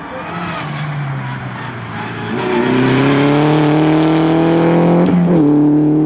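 Peugeot rally car engine accelerating hard on gravel, its pitch climbing steadily and getting louder from about two and a half seconds in. There is one quick upshift about five seconds in, after which it pulls on at a lower pitch.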